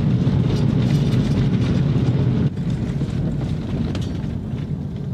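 Light aircraft engine and propeller running steadily, easing off a little about two and a half seconds in.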